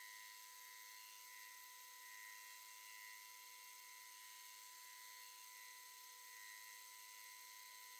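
Faint, steady high-pitched whine and hiss of a TOS milling machine running a skimming cut on a cylinder head, heard at tenfold time-lapse speed.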